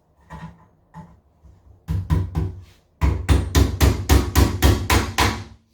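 A small pin hammer driving frame nails to fix metal frame runners onto a wooden hive box: a few light taps, then a quick, even run of about fifteen strikes, four or five a second, that stops shortly before the end.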